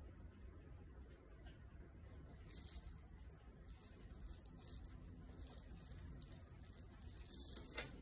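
Faint rustling and crinkling of a plastic table cover and small handling noises while paint is brushed on. The rustles are loudest about two and a half seconds in and again near the end.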